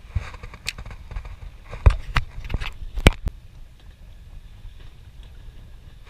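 Wind rumbling on the microphone over open, choppy water, with a handful of sharp knocks and clicks in the first three seconds, two of them loudest: handling noise from the spinning rod and reel while a fish is reeled in.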